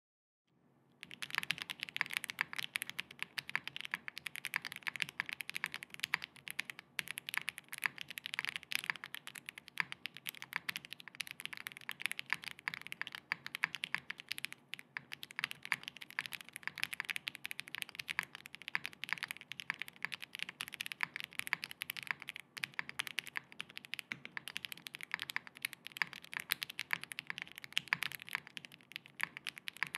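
Fast, continuous typing on a Neson N6 custom mechanical keyboard built with factory-lubed Wuque WS Red linear switches on a polycarbonate plate, PBTFans PYGA PBT keycaps, and case and plate foam. The keystrokes start about a second in.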